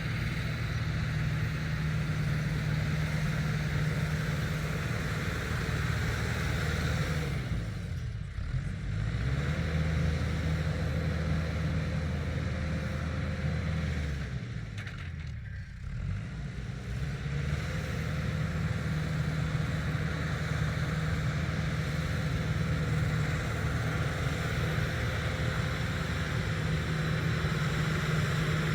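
Tractor engine running steadily under a rotary tiller. Its speed drops about a quarter of the way in, runs lower for several seconds, and comes back up about two-thirds of the way through.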